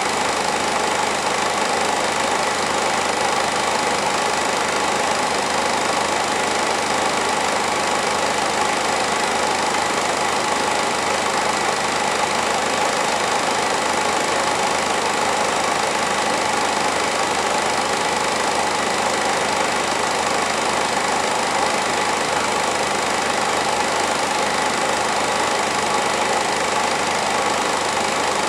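Film projector running with a steady mechanical whir and rattle.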